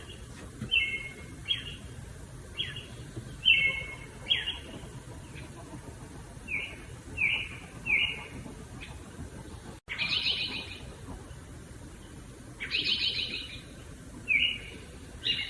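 Wild birds calling: a string of short chirps, each dropping in pitch, then two longer, harsher, buzzy calls in the second half, over a low steady outdoor background noise.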